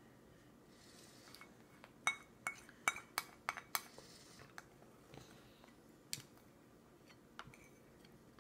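Plastic baby spoons clicking against a plastic bowl and high-chair tray: a quick run of about six sharp clicks, then three scattered ones.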